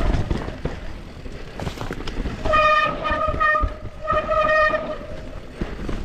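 Mountain bike disc brakes squealing in two steady, flat-pitched squeals of about a second each, starting about two and a half seconds in, over the rattle and rumble of the bike's tyres running down a rough trail.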